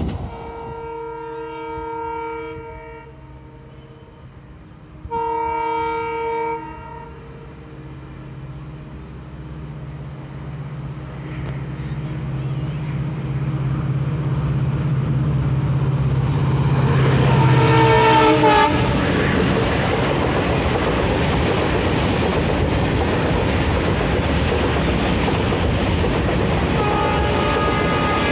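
A diesel locomotive's multi-tone horn sounds twice, then the low engine drone of diesel freight locomotives grows louder as they approach and pass. After that comes the steady rolling rumble and clickety-clack of tank wagons going by, with a short horn blast again near the end.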